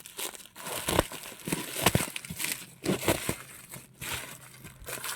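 Packaging crinkling and rustling as a box of tweeters is unwrapped, with irregular crackles and small clicks.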